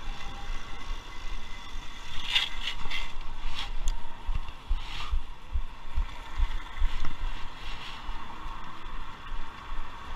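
City street noise: cars passing on the road alongside, with wind buffeting the microphone as low rumbling gusts. A few louder passing rushes come between about two and five seconds in.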